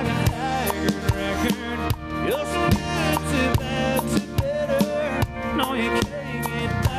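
Live country band playing, with a drum kit keeping a steady beat under guitars and a bending lead melody, as heard in the drummer's in-ear monitor mix.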